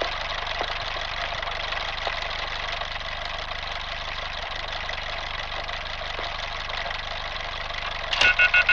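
Steady machine-like hum and hiss, then near the end a loud electronic alarm starts, pulsing rapidly at about five beats a second.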